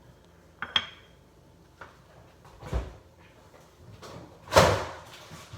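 Kitchen handling knocks: two sharp clicks about a second in, a dull thump, then a louder thump with a brief rush of noise near the end, like a cupboard or door being moved.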